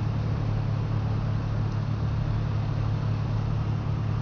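Idling truck engine, a steady low hum, with road traffic passing.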